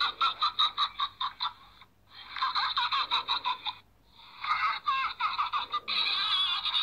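High-pitched Teletubby laughter: quick giggling pulses, about six a second, in three runs with short pauses, running on without a break near the end, heard through a phone's small speaker.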